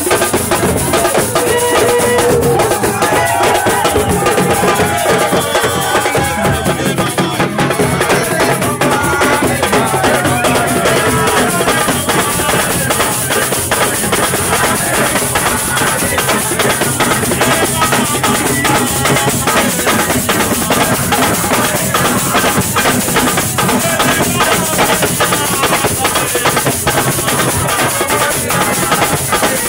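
Music with steady, dense drumming and percussion; a voice sings over it for roughly the first half.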